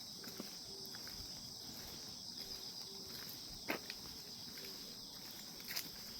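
Grass insects such as crickets calling in a steady, unbroken high-pitched chorus. A few sharp clicks stand out over it, the loudest about midway and another near the end.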